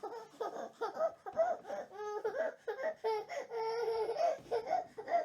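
A baby's voice in short, broken bursts, halfway between sobbing and laughing, with one longer held cry about three seconds in.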